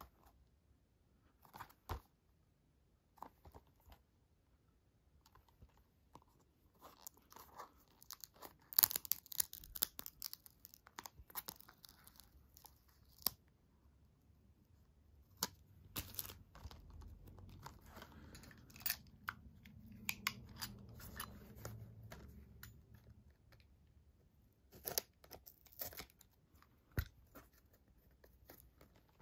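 Adhesive strips and stickers being peeled off a cardboard slipcover and a plastic Blu-ray case: faint scattered crackling and tearing, densest before the middle, with a few sharp clicks of the case being handled.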